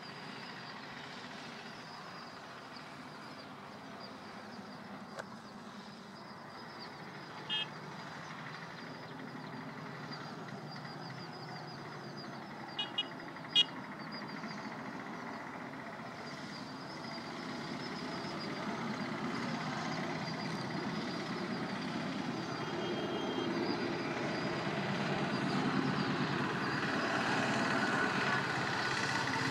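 Pair of ALCo diesel locomotives approaching, their engine sound growing steadily louder over the second half. A few short, high-pitched beeps stand out around the middle, the loudest just under halfway.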